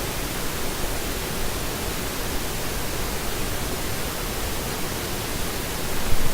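Steady, even hiss of background noise, with no clicks, tones or other distinct events.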